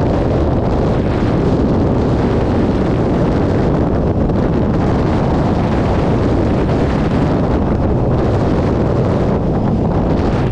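Steady, loud wind rushing over the microphone of a camera on a moving motorcycle at road speed, a low roar that buries most of the engine and tyre sound.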